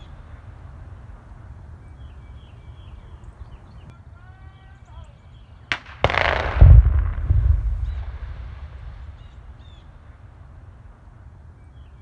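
Explosive rock blast in drilled holes, detonating at a distance about six seconds in: a sharp crack, then a deep, loud boom that rumbles and dies away over about three seconds.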